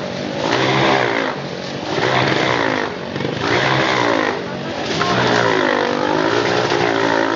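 Honda CRF four-stroke dirt bike revving inside a steel-mesh globe of death. The engine pitch rises and falls about every second and a half as the bike loops the sphere, and settles into a steadier, layered drone about five seconds in.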